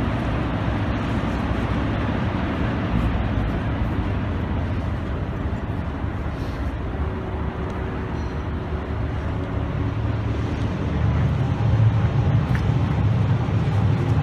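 Steady low engine rumble with a hum, growing somewhat louder about eleven seconds in.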